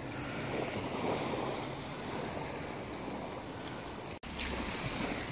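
Surf washing on a beach, a steady rushing noise of waves that cuts out for an instant about four seconds in.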